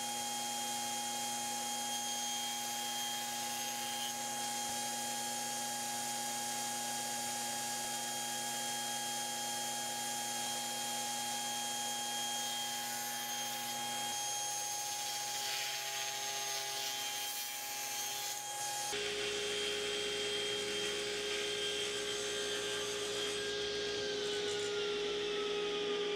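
Table saw running and ripping boards of Iroko (African teak), a steady machine tone under the cutting noise. Near the end the pitch falls as the blade spins down.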